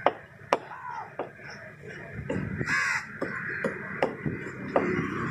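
Heavy cleaver chopping red snapper on a wooden log block: a string of sharp chops at uneven intervals, the loudest right at the start and about half a second in. Crows caw about a second in and again near three seconds.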